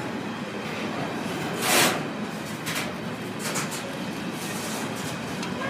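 Container wagons of a freight train rolling past on the track: a steady rumble of wheels on rail, with one brief loud whoosh of air about two seconds in and a few light clicks after it.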